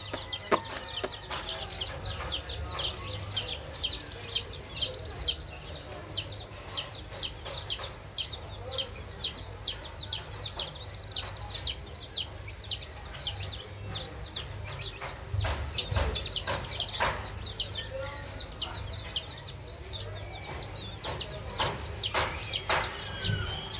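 A brood of baby chicks peeping continuously, a string of short high peeps that slide down in pitch, about two to three a second. A few knocks sound near the middle.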